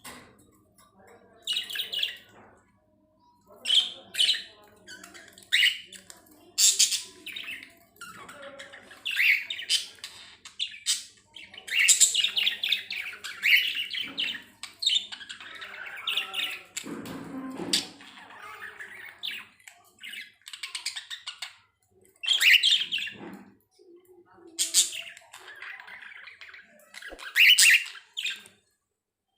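Pet budgerigars chirping and warbling in short, irregular bursts with brief pauses between them.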